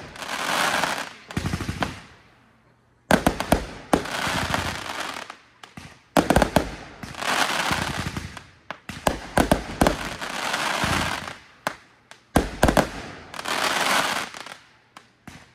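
Consumer fireworks going off in repeated volleys, about five in all. Each volley is a quick cluster of sharp bangs, spaced about three seconds from the next, followed by a crackling hiss that dies away over a second or two.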